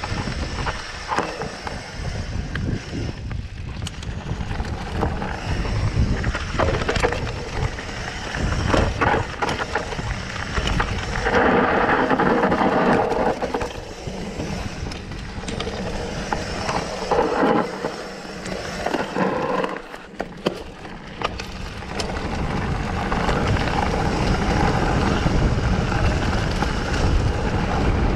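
Mountain bike rolling down a rough dirt trail: the tyres rumble over the ground and the bike rattles and knocks over roots and bumps, with wind buffeting the camera microphone.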